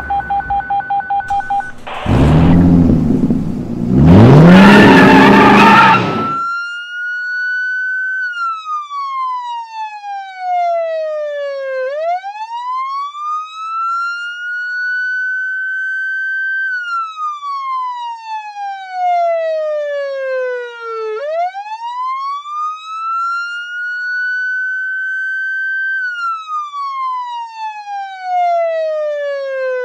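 Rapid short electronic beeps over a rumble, then a loud burst of noise rising in pitch, then a police car siren in a slow wail. The wail glides down and back up about every nine seconds.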